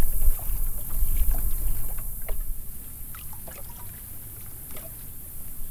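Wind buffeting the microphone over water lapping and slapping against a bass boat's hull. The wind rumble dies down about halfway through, leaving soft lapping and small splashes.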